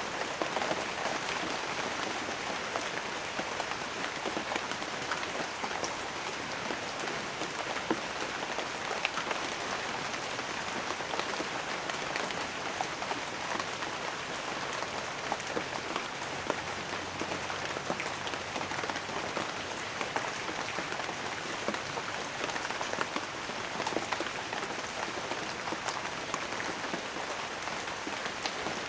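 Steady rain falling, many individual raindrops pattering on a surface at an even intensity.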